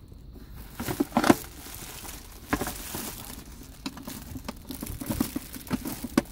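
Plastic wrapping crinkling and rustling as a car armrest is handled, with scattered clicks and knocks from the armrest's plastic parts; the loudest knocks come about a second in.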